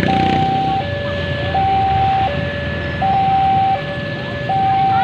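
A two-tone hi-lo siren, alternating regularly between a higher and a lower note about every three-quarters of a second, over the low rumble of road traffic.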